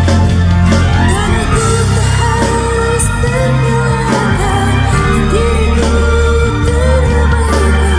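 Karaoke singing: a solo voice singing a melody over a pop backing track, the voice coming in about a second in.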